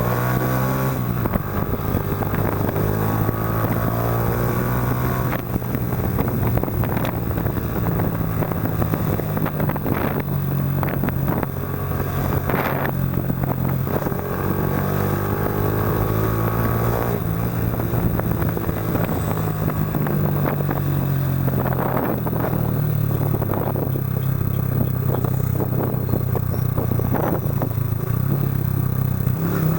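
Yamaha Factor 125 single-cylinder four-stroke engine running through an aftermarket Roncar aluminium RS exhaust while the bike is ridden. The exhaust note steps up and down several times with throttle and gear changes.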